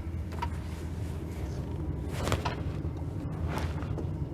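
A few light knocks and clatters from someone working under a car's open hood, over a steady low hum.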